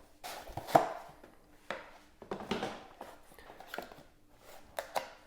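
Cardboard packaging of a computer-mouse box being opened and handled: a few sliding, scraping swishes of card on card, with several sharp taps and knocks.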